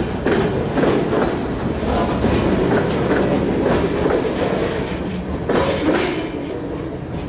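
Freight train of covered hopper cars rolling past close by: steady rumble with steel wheels clacking in uneven runs of clicks. The sound fades a little near the end as the last car goes by.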